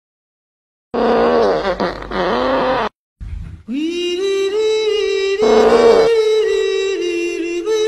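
Comic fart sound effect: a rough, wobbling blast lasting about two seconds, starting about a second in. Then a long held musical note that steps up and down in pitch, with a short rough burst over it about halfway through.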